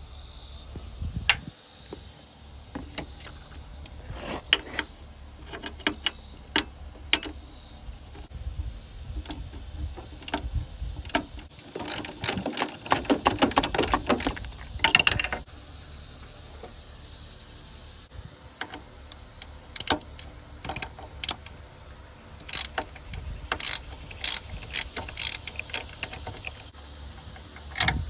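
Ratchet wrench clicking in bursts as a 10 mm bolt is loosened, with a fast run of clicks about halfway through and scattered metal clicks and taps around it.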